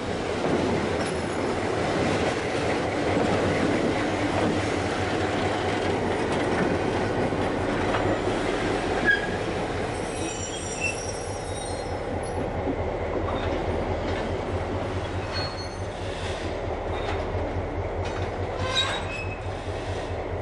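EMD SW1200 switcher locomotive's V12 diesel running as the locomotive rolls past close by, wheels rumbling on the rails, with wheel squeal about halfway through. In the second half the diesel idles with a steady low throb.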